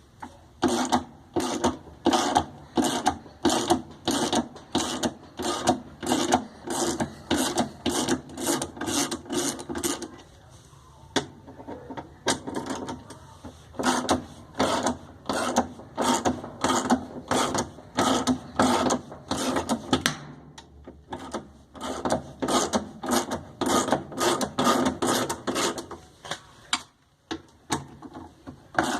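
Hand tool worked back and forth in fast, regular strokes, about three a second, in long runs broken by a few short pauses.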